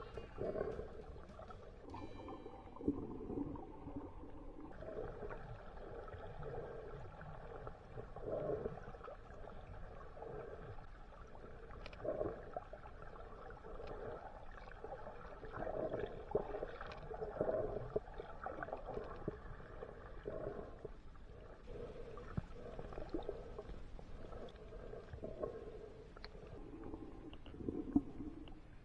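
Muffled, irregular gurgling and sloshing of water heard through a camera held underwater, with a few faint clicks.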